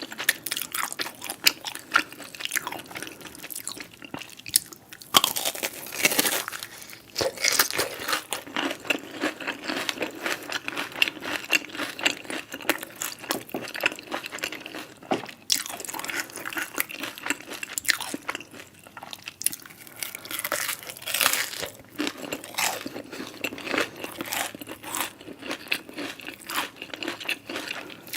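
A person biting and chewing crunchy food close to the microphone: a dense run of crackling crunches.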